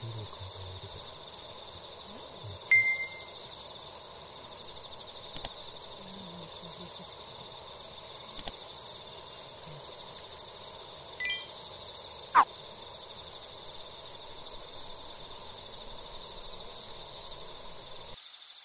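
Evening outdoor ambience with a steady high insect chorus, broken by a few short chime-like sound effects: a click and ding about three seconds in, a bell-like ding near eleven seconds and a quick falling blip just after. These are the kind of sound effects that go with a subscribe-button animation.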